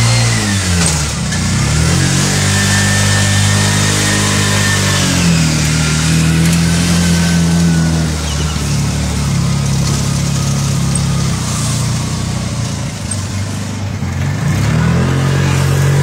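Tuk-tuk (auto-rickshaw) engine heard from inside the passenger cab, running under way. Its pitch drops near the start, climbs over the next few seconds and then holds. About two seconds before the end it dips and rises again.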